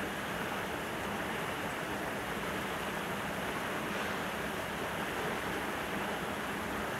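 Steady rushing background noise with a faint low hum underneath, even throughout with no distinct events.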